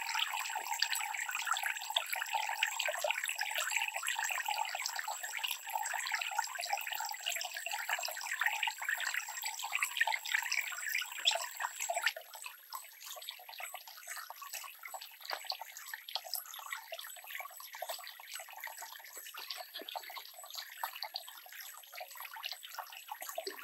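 Water pouring from a bamboo spout and splashing into a small pond, a steady trickling and splashing that drops to a quieter level about halfway through.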